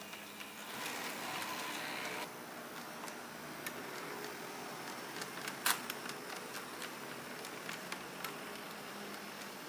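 H0-scale model streetcars running on layout track: a steady running noise with a string of light irregular clicks as the wheels pass rail joints and crossings. The sharpest click comes about five and a half seconds in.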